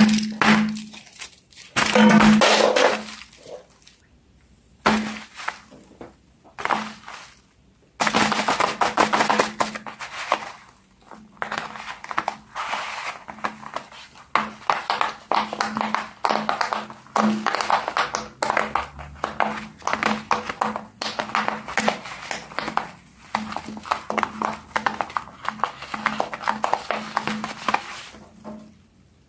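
Silicone pop-it fidget toys being pressed by hand, a long run of quick pops and knocks, after a few separate bursts of squishy toys being squeezed and handled near the start.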